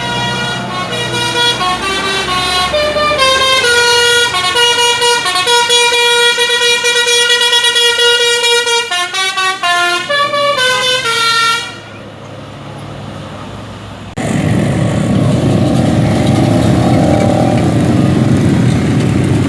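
Tour bus 'telolet basuri' musical horn playing a tune of stepped, held notes for about eleven seconds. After a short lull, a loud low rumble starts about fourteen seconds in.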